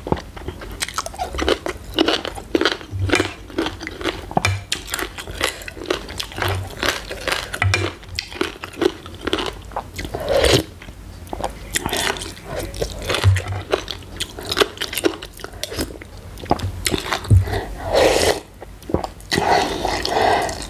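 Close-miked eating: crisp crunching and wet chewing of spicy green papaya salad with raw Thai eggplant and vegetables, in a quick irregular run of bites, with a few longer slurping sounds from the spoon and noodles.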